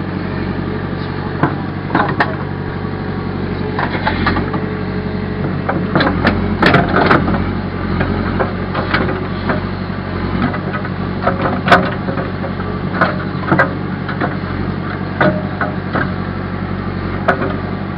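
Backhoe engine running steadily, with scattered knocks and clanks from the machine's work, the loudest about six to seven seconds in and again near twelve seconds.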